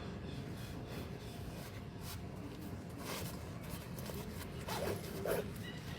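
A cat yawning loudly with a short voiced sound about five seconds in, after a scratchy rustle a couple of seconds earlier.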